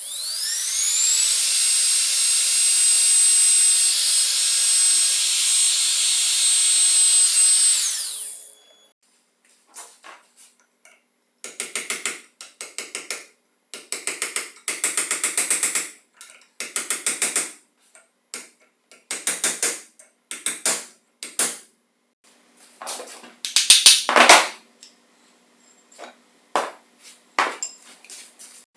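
A small high-speed electric power tool spins up with a rising whine, runs steadily for about eight seconds, then winds down. After a pause come a dozen or so short bursts of a power tool with a rattling, ratchet-like texture.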